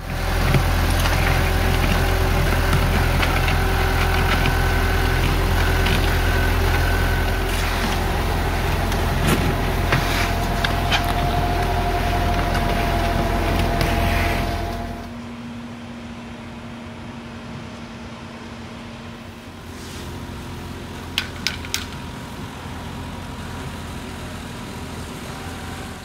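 Engine of a concrete curbing machine running steadily and loud. Partway through, the sound drops to a quieter, steady engine hum, with three quick sharp knocks near the end.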